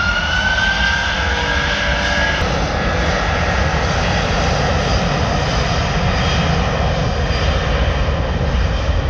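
Airbus A330 jet engines at takeoff power, a loud and powerful rumble. A whine rises over the first two seconds, then gives way to steady engine roar.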